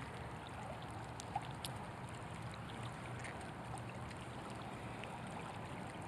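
Shallow creek current running steadily over a gravel bed, with a small click about a second and a half in.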